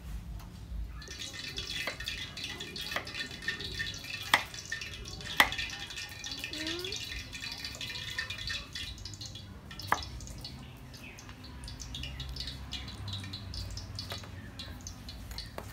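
Kitchen knife slicing a cucumber on a round wooden chopping board: crisp cuts with the blade knocking against the wood, irregular, a few knocks standing out, the loudest a little after 4 s and at about 5.5 s.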